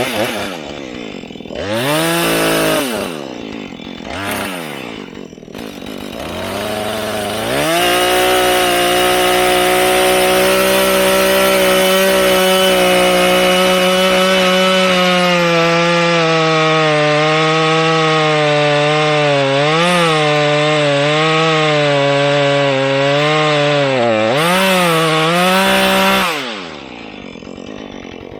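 Husqvarna 435 two-stroke chainsaw blipped up and down a few times, then held at full throttle for about eighteen seconds while cutting through a small tree, its pitch sagging and wavering under load. About two seconds before the end it drops off throttle and the sound falls away sharply.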